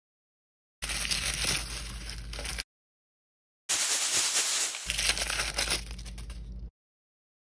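L.O.L. Surprise blind-bag packaging being torn open and crinkled in two separate stretches, each cutting off abruptly.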